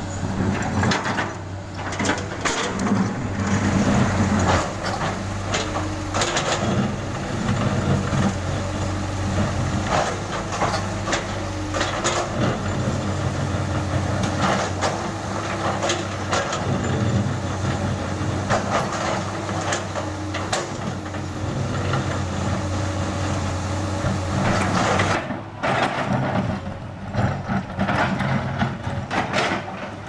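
Komatsu PC200 hydraulic excavator's diesel engine running steadily under load, with repeated scraping, knocking and clattering as the bucket tears up and moves broken chunks of old asphalt. The sound changes abruptly near the end.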